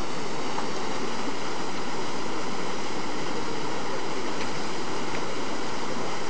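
Steady, unbroken rushing of water.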